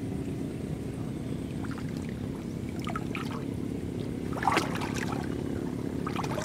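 Dry jute stalks rustling and crackling in a few short bursts, the loudest about four and a half seconds in, over a steady low rumble.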